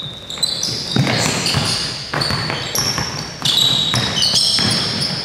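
A basketball being dribbled on a hardwood gym floor, its bounces coming as repeated thuds, mixed with many short, high squeaks of sneakers on the floor as players cut and stop.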